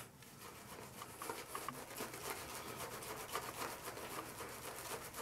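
Paladin Chief super badger shaving brush working lather over a bearded chin and neck: faint, quick scrubbing strokes of the bristles against the whiskers.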